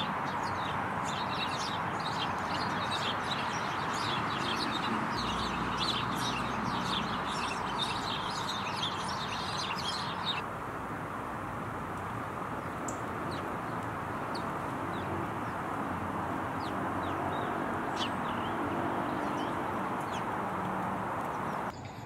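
A flock of sparrows chirping busily over steady road noise. About ten seconds in the chirping drops off abruptly to a few scattered calls.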